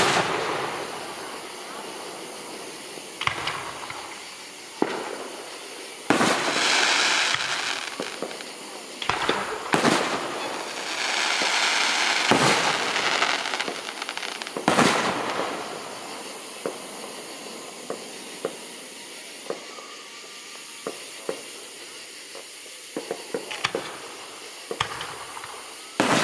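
Aerial fireworks shells bursting overhead: sharp bangs every few seconds, with two longer stretches of crackling noise between them.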